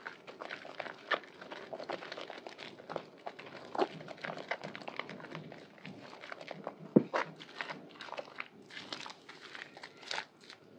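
Hands squeezing and kneading thick lather from a soaked Purbasari white bar soap in water: a continuous wet squelching and crackling of foam, with irregular small pops and one sharper squish about seven seconds in.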